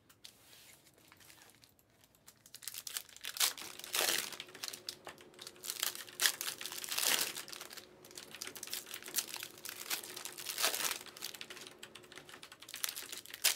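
Panini Prizm basketball trading cards and their foil pack wrappers being handled and stacked: crinkling and rustling in repeated bursts with light clicks, starting about two and a half seconds in.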